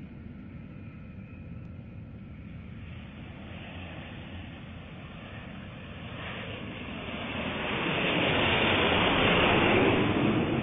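Jet airliner passing low overhead on its landing approach: a low rumble swells into a loud engine roar from about halfway through, peaks near the end and begins to fade.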